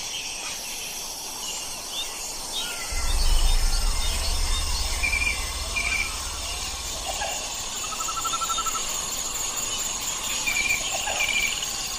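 Outdoor ambience of insects trilling steadily, with scattered bird chirps and short calls. A low rumble starts about three seconds in and lasts about four seconds.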